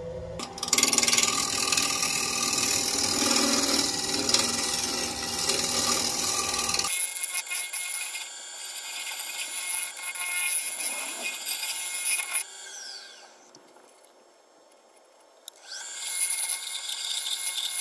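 Turning tool cutting a spinning cherry bowl on a wood lathe, a scraping hiss as the shavings come off. It is heaviest for the first several seconds, turns lighter and broken, drops away for a couple of seconds near the end, then starts again.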